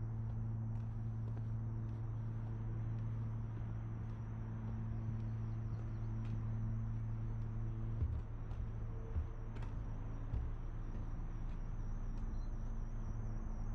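A steady low mechanical hum, with a few dull thumps about eight to ten seconds in.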